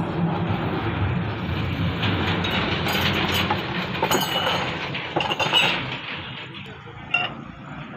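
Steel wheel-bearing races and tools clinking and ringing as they are handled in a metal pan, over a steady low rumble. There is a short metallic ring about four seconds in and a few sharp clinks near the end.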